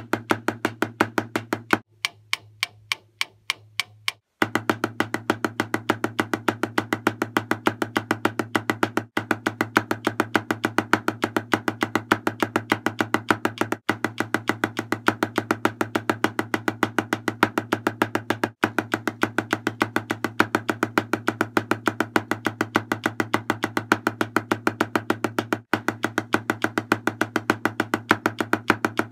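Drumsticks striking a snare drum in a fast, steady stream of even single strokes, right and left hands alternating. The strokes drop much quieter for about two seconds near the start, then return to full level.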